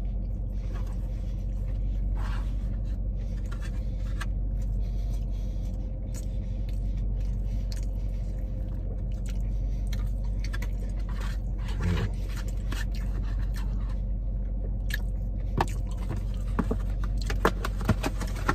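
A man chewing and biting fried chicken pizza, with a plastic fork scraping and clicking against the cardboard box now and then, over a steady low hum in the car cabin.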